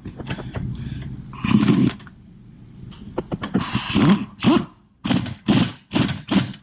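Hand ratchet wrench ratcheting, tightening a bolt on an aftermarket camber control arm: some clicking and rasping at first, then a run of even back-and-forth strokes about two a second.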